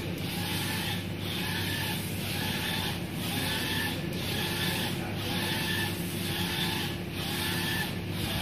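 UV flatbed printer printing, its print-head carriage shuttling back and forth about once a second. Each pass brings a whine that swells and fades, with a brief dip as the carriage turns, over a steady low hum.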